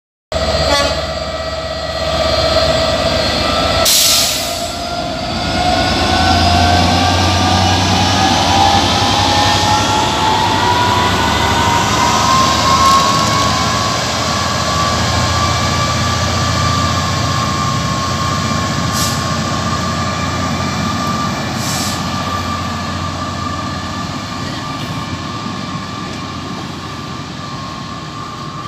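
Class 67 diesel locomotive hauling an InterCity 225 Mark 4 set away on a Class 91 drag: a steady diesel drone under a whine that rises in pitch as it gathers speed over the first fifteen seconds or so, then holds level. One sharp clank comes about four seconds in, and the Mark 4 coaches roll past, slowly fading.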